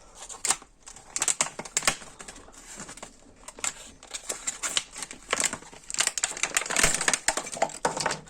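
A tubeless tire repair kit being opened and its plastic case and tools handled: a busy run of clicks, taps and rattles, thickest a little past the middle.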